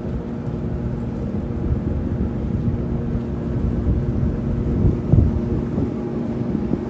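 A Barnes Quintet motor cruiser's engine running steadily underway, with wind rumbling on the microphone.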